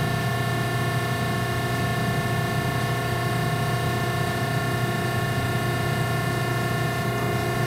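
Heald No. 171 internal grinder running under power while its table traverses: a steady machine hum with several constant whining tones over a hiss.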